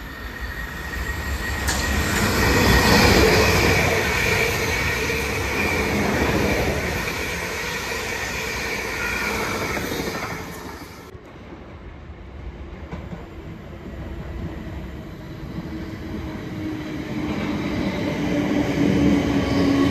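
An electric multiple-unit train runs through on the far track, loudest a few seconds in and dying away about eleven seconds in. A second electric train then approaches and draws into the platform, growing louder, with a low whine near the end.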